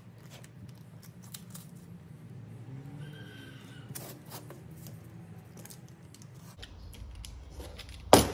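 Masking tape being pressed and smoothed by hand onto a knife blade: faint rustling and small ticks, with one sharp click near the end.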